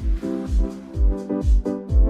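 Electronic background music: a kick drum on a steady beat of about two per second under sustained keyboard chords.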